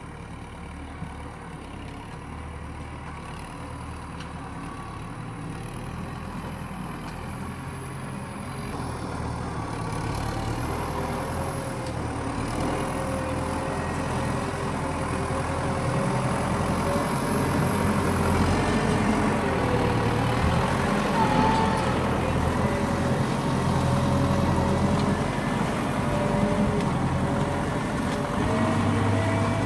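MTZ 952.3 tractor's diesel engine working under load as the tractor drives through deep mud, its note rising and falling. It grows steadily louder as the tractor approaches.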